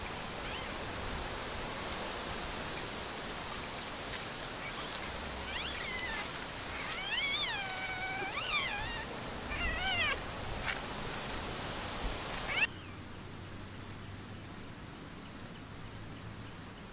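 An animal calling: a run of about six drawn-out calls that rise and fall in pitch, a little past a third of the way in, over a steady hiss that drops away suddenly near the end.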